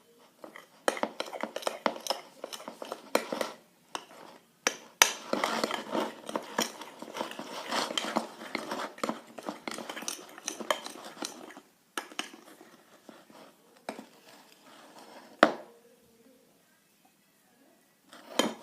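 A spoon stirring thick slime dough with corn starch in a bowl. It scrapes and clicks against the bowl in a dense, uneven run of small knocks, which ends in one sharper knock about 15 seconds in.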